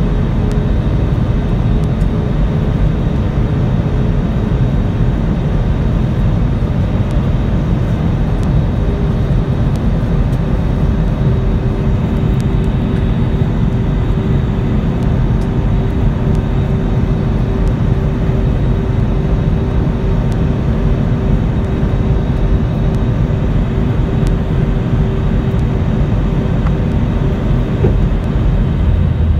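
Cabin noise of an Airbus A320-family airliner descending: the steady roar of the jet engines and airflow over the fuselage, with a steady hum of constant pitch running through it.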